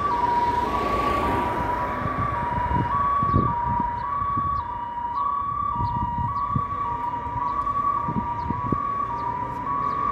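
Jelcz 422 GCBA fire engine's two-tone siren, switching between a high and a low note about every half second, steady throughout, with a low rumble underneath.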